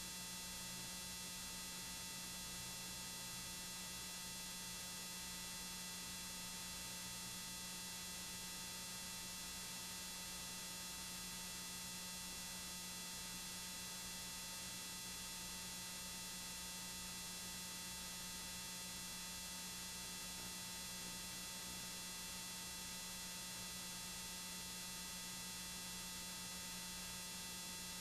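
Steady faint hiss and hum with thin, even whining tones: the electrical noise floor of tape-playback equipment with no programme sound on it.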